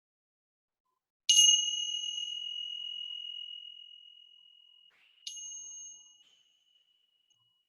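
A high-pitched meditation bell struck twice, about four seconds apart, closing a guided meditation. The first strike is the louder and rings on for several seconds; the second is softer and shorter.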